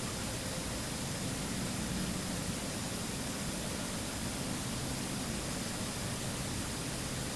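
Steady hiss with a faint low hum underneath: the background noise of a quiet room, with no knocks or taps.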